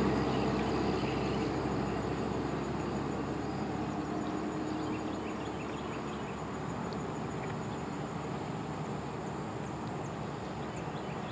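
A loaded dump truck driving away. Its diesel engine and tyre noise fade steadily as it pulls into the distance.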